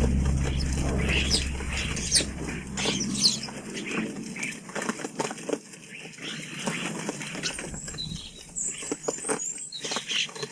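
Garden birds at a feeder: scattered short high chirps among many small taps and wing flutters. A low steady hum fades out about three seconds in.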